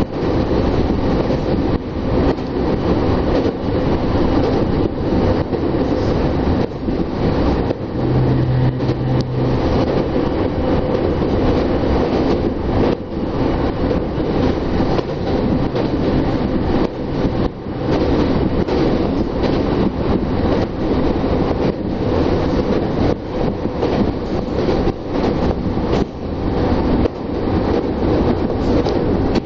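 Tokyo Metro Tozai Line train running at speed, heard from inside the car: a steady rumble of wheels on rails with frequent knocks from the track, loudest while it crosses a steel truss bridge.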